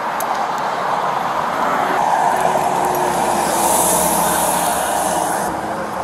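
Steady road traffic noise from vehicles passing on the roadway, with a hiss that swells about halfway through and drops away shortly before the end.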